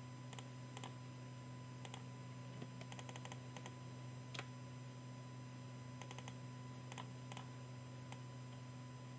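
Faint clicking of a computer keyboard being typed on, the keystrokes coming singly and in short quick runs, over a steady low hum.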